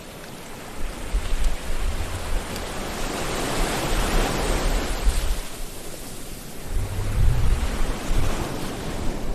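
Sea waves breaking and washing on the shore: the surf swells to a peak about four seconds in and draws back, then a second wave builds near the end with a low rumble.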